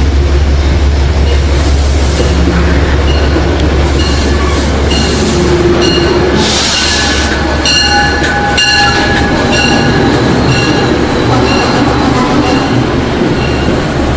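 Metro-North diesel train led by P32AC-DM locomotive 209 moving through the station: a steady low engine rumble with wheel squeal. From about four seconds in, a short ringing tone repeats about one and a half times a second.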